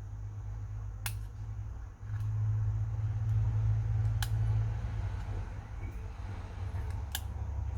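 Three sharp clicks about three seconds apart, from small repair tools working at the opened iPhone's internal parts, over a steady low hum that swells between about two and five seconds in.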